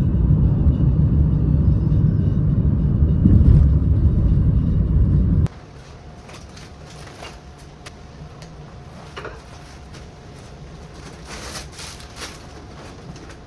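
A loud low rumble that cuts off suddenly about five seconds in, leaving quieter background noise with a few faint clicks.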